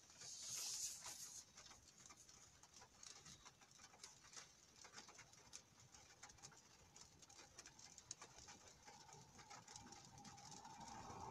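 Faint, scattered light ticks of raindrops on a car's roof and windows, heard from inside the cabin, with a brief hiss in the first second.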